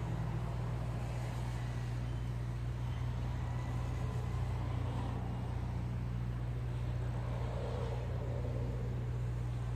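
A steady low rumble, with the faint whine of a small brushless FPV quadcopter's motors wavering in pitch as it flies at a distance.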